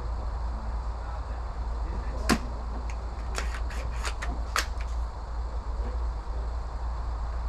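Sharp mechanical clicks from handling an airsoft gun: one crisp click about two seconds in, then a quick run of lighter clicks over the next couple of seconds, over a steady low rumble.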